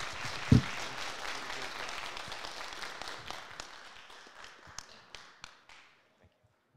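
Audience applauding, thinning to a few scattered claps that die away near the end. A single heavy low thump, like a knock on the microphone, comes about half a second in.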